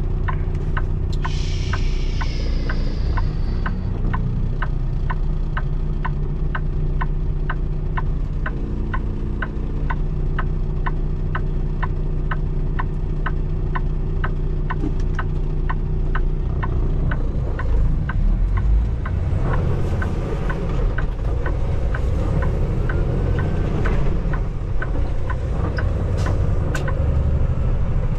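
Semi truck's diesel engine running, heard from inside the cab, with a steady regular ticking of about two clicks a second. The engine sound gets busier and noisier about two-thirds of the way through.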